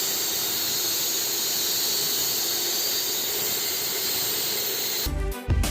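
Concrete-cutting saw running steadily through a concrete slab, a high hissing whine with a steady low hum under it. About five seconds in it gives way to music with a strong beat.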